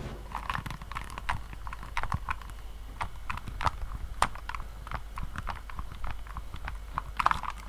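Typing on a mechanical keyboard with Kailh Polia tactile switches: a quick, uneven run of key clicks and clacks, a few to several a second, over a faint low hum.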